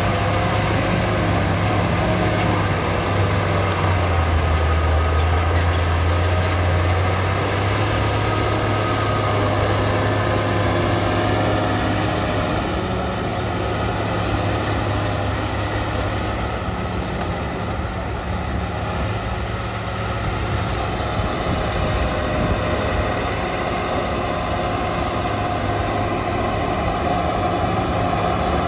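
Shantui DH17 bulldozer's diesel engine running steadily at working revs as it pushes earth, with a wavering higher whine above the engine hum. The engine note deepens briefly about five seconds in.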